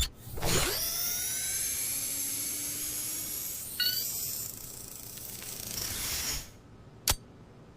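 A mechanical sound effect: a whoosh falling in pitch, then a high whirring and hissing like a servo or motor running for about six seconds, with a short chirp midway. It ends in a single sharp click.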